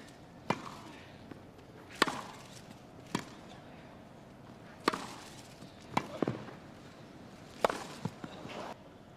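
Tennis rally on a grass court: racket strings striking the ball back and forth about once a second, with softer bounces between, ending in a hard overhead smash near the end.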